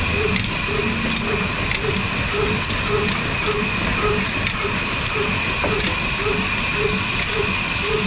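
Old Ruston diesel engine running steadily through its flat-belt and pulley drive, with an even beat about twice a second, a steady high whine and a hiss.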